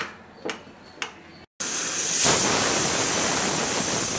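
Stovetop pressure cooker letting off steam through its weighted whistle valve: a loud, steady hiss with a high whistling edge that starts abruptly about a second and a half in. Each such whistle marks the cooker at full pressure, counted to time the cooking.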